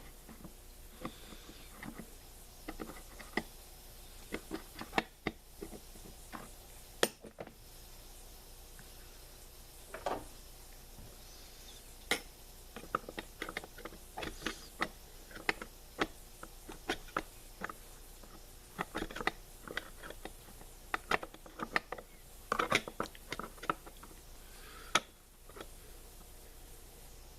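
Irregular small metal clicks, taps and rattles from hands and a tool working on a chainsaw as its parts are loosened and adjusted.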